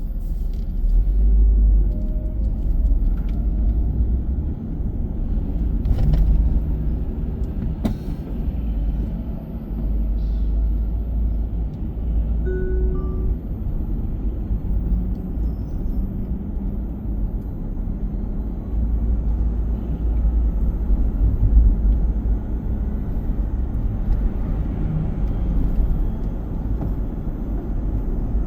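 Car driving on city streets heard from inside the car: steady low road and engine rumble, with a couple of faint clicks and a brief soft tone near the middle.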